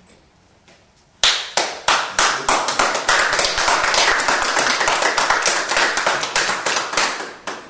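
A small group of people applauding, starting suddenly about a second in and dying away at the end.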